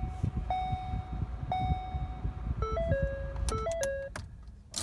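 Ford Focus dashboard chimes: three long, steady beeps about a second apart, then a short jingle of quick tones stepping up and down, over a low rumble in the car.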